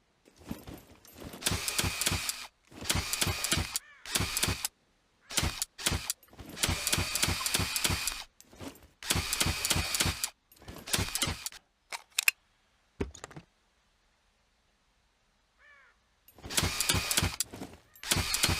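Automatic crossbow sound effect: bursts of rapid mechanical clicking with a metallic ring, each lasting about a second, repeated again and again with short pauses between them and one longer pause near the end.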